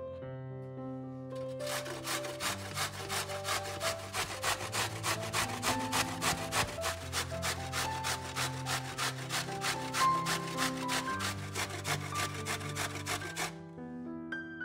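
Rapid rhythmic scraping strokes of hand food preparation, about four a second, starting about two seconds in and stopping shortly before the end, over background music.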